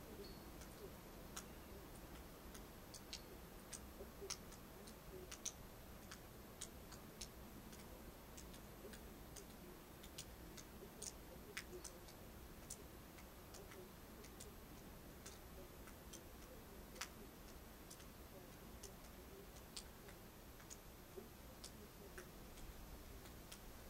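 Near silence: a faint low hush with small, sharp, irregular ticks, about one to three a second.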